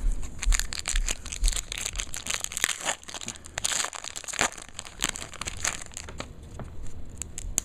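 Crinkling and crackling of a pack of old football trading cards being handled, a dense run of small irregular crackles.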